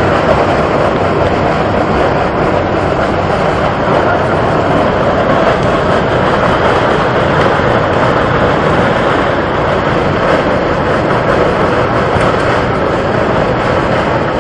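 Hot mud and water eruption jetting out of the ground, a loud steady rushing noise from the spray.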